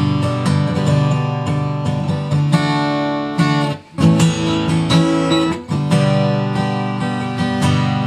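Acoustic guitar strumming chords in a steady rhythm, with a brief break about four seconds in.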